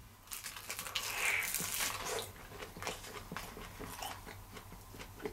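A crisp crunch as a pan-grilled, soy-glazed fried tofu pouch (aburaage), its surface dried hard, is bitten into, followed by crackly chewing close to the microphone.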